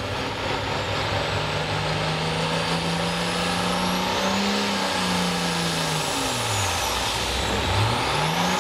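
International Harvester hot farm pulling tractor's turbocharged diesel engine at full throttle, hauling the sled, with a high turbo whine over the engine note. The note climbs over the first few seconds, sags about six seconds in as the load bogs it down, and climbs again near the end.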